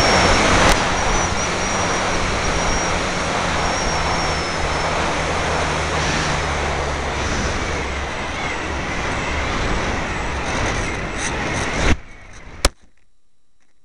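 Onboard sound of a Parkzone F4F Wildcat electric RC plane in flight: loud wind rush over the taped-on camera's microphone with the motor and propeller whine under it. It stops suddenly about twelve seconds in as the plane touches down on the sand, followed by a single sharp click.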